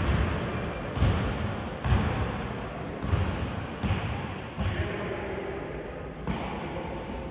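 A basketball being dribbled on a gym floor, about one bounce a second, each bounce echoing in the hall, with voices in the background.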